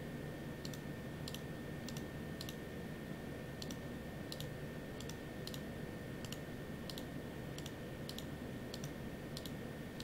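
Computer mouse clicking, sharp light clicks irregularly about one or two a second, many in quick press-and-release pairs, as right-click menus are opened and items pasted. A faint steady high whine runs underneath.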